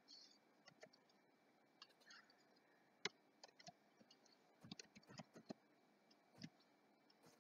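Faint, scattered clicks of a computer mouse and keyboard. A quick run of key presses comes a little past halfway, with the loudest single click shortly before it.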